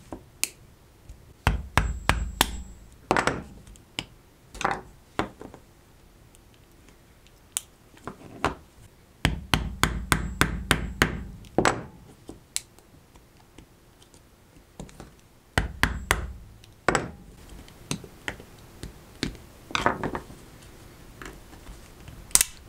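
A hard plastic camcorder battery case being forced open with a screwdriver and hammer: irregular knocks, taps and plastic cracking in several dense bursts, with quieter pauses between them.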